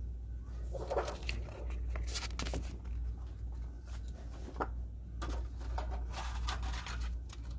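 Crinkling and rustling of a packaged plastic sign being pulled off a display hook and handled, in several bursts, over a steady low hum.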